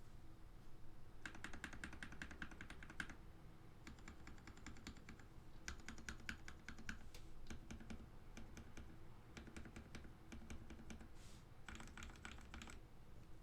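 RK68 mechanical keyboard with lubed linear Gateron Red switches and SA profile keycaps being typed on, in quick runs of keystrokes about a second long with short pauses between runs.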